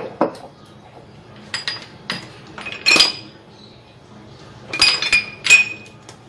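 Kitchenware clinking: a series of sharp clinks with a short ringing tone, the loudest about three seconds in and a cluster of three near the end.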